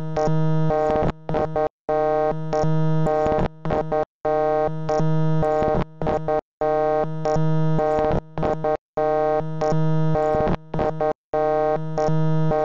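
Loud electronic tone on one low pitch, held for about a second at a time and broken by short gaps and quick stuttering blips, repeating in a loop about every two and a half seconds.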